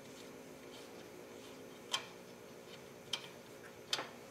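A few sharp metal clicks from an Allen wrench working a set screw on the drill press head, three of them about a second apart, the first the loudest, over a faint steady hum.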